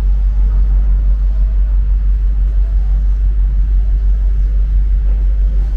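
A steady, loud low rumble with a fluttering drone just above it, unbroken and unchanging in level.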